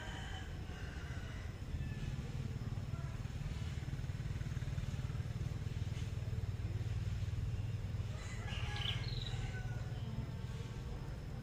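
A small engine running steadily, coming in about two seconds in and easing off near the end. A few short bird chirps sound over it around eight to nine seconds in.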